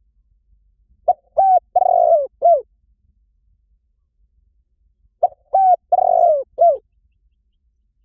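Spotted dove cooing: two phrases of four coos about four seconds apart, each a short opening note, a longer note, the longest note, and a short final note.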